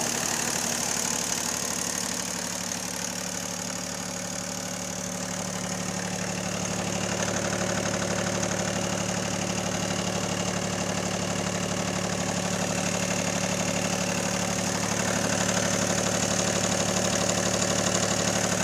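Bombardier MPV-20's three-cylinder diesel engine idling steadily and nicely with its hood off.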